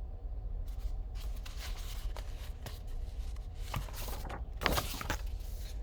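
Paper rustling as the pages of a book are handled and turned: a run of irregular rustles with a few sharp clicks starting about a second in, over a steady low hum.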